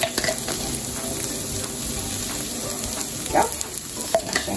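Chopped onions, garlic and ginger sizzling steadily as they fry in oil in a pot, with a couple of short higher-pitched sounds over it about three seconds in and near the end.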